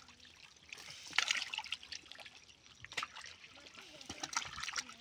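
Light splashing and trickling in shallow, muddy pond water, stirred by wriggling snakehead fish and a person wading. A few sharper splashes come about one and three seconds in.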